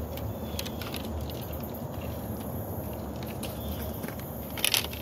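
Outdoor ambience: a steady low rumble with scattered faint ticks, two short descending chirps, and a brief louder rustle near the end.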